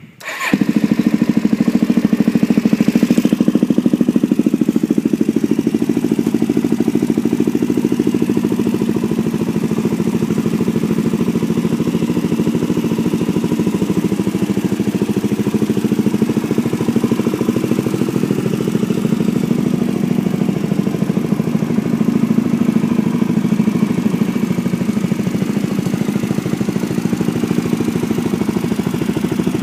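Suzuki DR-Z400S single-cylinder four-stroke engine, bored out to 434 cc and breathing through a full Yoshimura exhaust, starting up about half a second in and then idling steadily. It runs a little louder for the first few seconds before settling.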